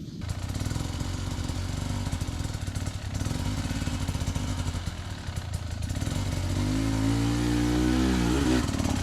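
Enduro dirt bike engine running, then revving up harder with a rising pitch about two-thirds of the way in as the rider goes at a steep climb, and dropping off near the end.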